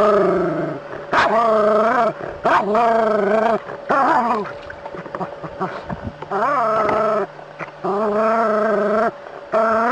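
A small terrier barks again and again in long, drawn-out barks, alarm barking at a snake in the water. The barks come about every second, with a short pause near the middle.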